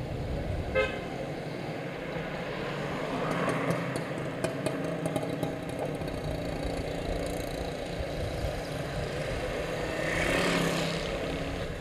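Street traffic: motor vehicle engines running steadily, with one vehicle passing louder about ten seconds in.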